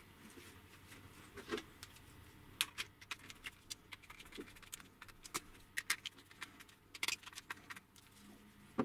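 Small screwdriver turning M3 bolts that fix a 3D-printed plastic tool clamp to a plastic carriage: a run of light, irregular clicks and taps of metal on plastic, starting about a second and a half in.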